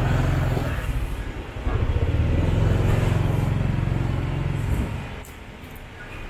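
Low engine rumble of a nearby motor vehicle, dying down about five seconds in.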